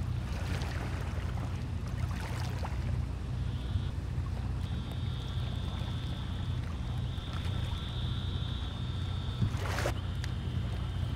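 A motor idling with a steady low hum, over a high thin tone that comes and goes. A sharp knock sounds near the end.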